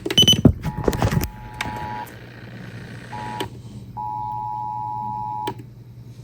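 Emergency Alert System attention signal, the two-tone alert (853 and 960 Hz) received over FM radio, heard in broken-up stretches that start and stop several times. A harsh burst of static-like noise and clicks comes first, in about the first second.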